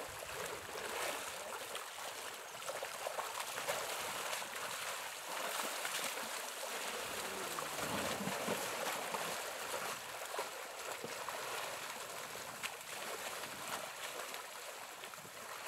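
Muddy water sloshing and splashing as an elephant mother and calf struggle and churn about in a flooded well.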